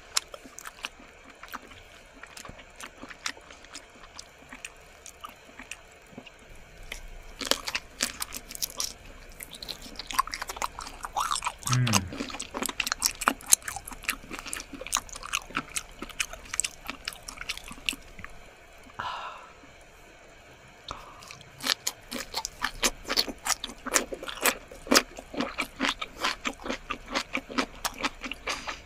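Close-miked mukbang eating of squid: rapid, wet clicking and smacking chewing sounds, with a brief lull about two-thirds of the way through.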